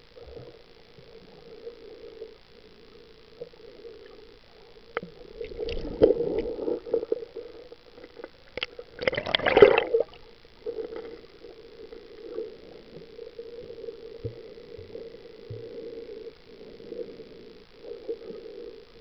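Muffled underwater water sounds heard from a submerged camera: steady gurgling and sloshing, with louder splashy surges about six seconds in and again, loudest, about nine seconds in as the camera nears the surface.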